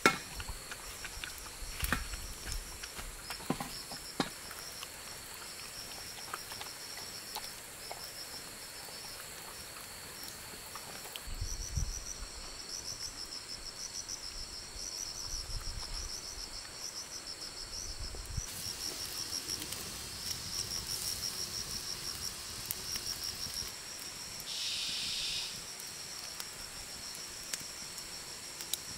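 Forest insects chirring in a high, pulsing trill that carries on throughout, with a few sharp clicks in the first few seconds.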